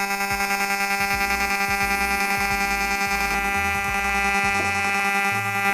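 TIG welding arc on stainless steel, run on DC double pulse: a steady buzz pitched at the 200-per-second high-speed pulse, throbbing about ten times a second with the low-speed pulse.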